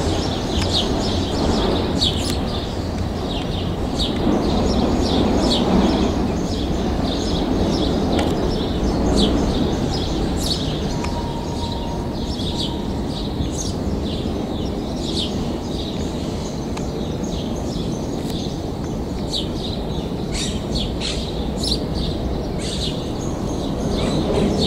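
Small birds chirping again and again over a steady low rumble from a freight train of loaded car-carrier wagons rolling away along the track.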